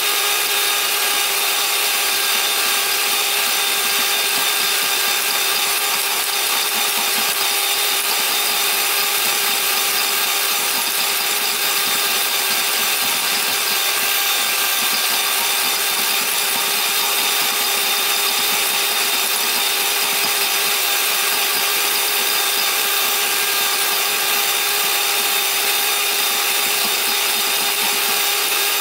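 Electric hand mixer running at a steady speed with a constant motor whine, its twin beaters whisking instant coffee, sugar and hot water in a glass bowl to whip it into dalgona foam.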